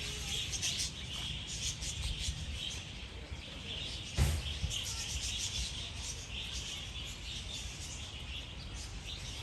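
A flock of budgerigars chattering in many short, rapid chirps over a low rumble, with a single dull thump about four seconds in.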